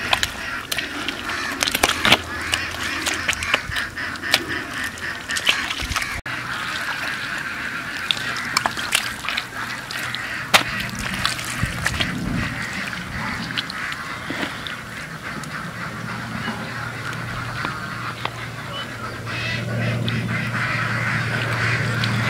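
Waterfowl calling, with many sharp clicks through the first few seconds and a low steady hum that grows louder near the end.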